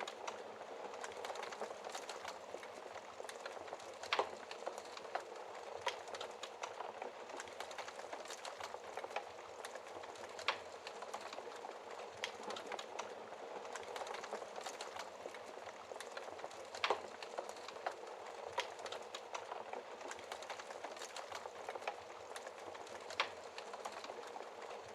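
Fire in a fireplace crackling steadily: a dense run of small crackles over a soft hiss, with a handful of sharper pops standing out now and then.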